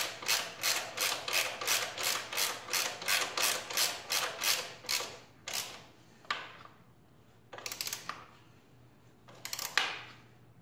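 Socket ratchet wrench clicking in a steady rhythm, about three clicks a second, as the top shock mounting bolt is tightened through an extension. The clicking stops about halfway through, and a few single clicks follow.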